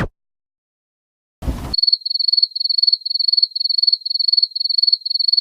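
Cricket chirping sound effect: one high chirp repeating about twice a second, the meme cue for awkward silence. It starts about a second and a half in, right after a short burst of noise.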